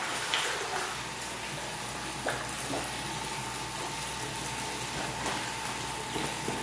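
Water from a koi tank's filter outlet pouring steadily into the tank, with koi splashing at the surface as they crowd for food and a few sharper splashes.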